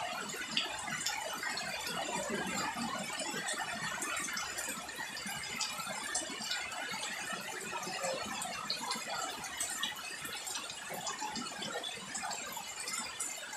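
Steady rain falling on garden foliage and the ground, a dense patter of many small drops and drips.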